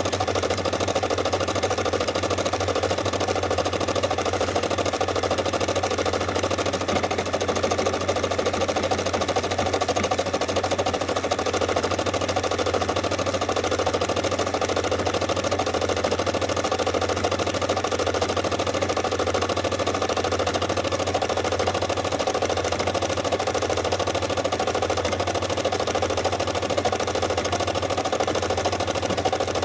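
Brother SE600 embroidery machine stitching steadily, its needle running in a fast, even stream of strokes while the embroidery arm moves the hoop.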